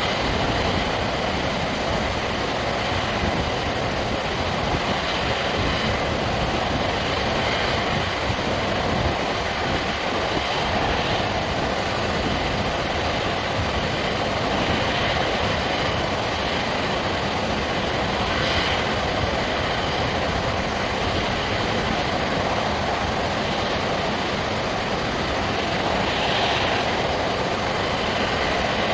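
Steady rushing of water from a dam's curtain-style spillway release: many streams pouring over the crest of a concrete arch dam, plus a side jet, plunging into the basin below. The sound is an even, unbroken wash of noise.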